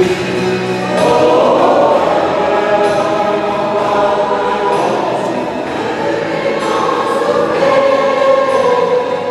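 Mixed choir of women's and men's voices singing together, holding chords that change every second or two.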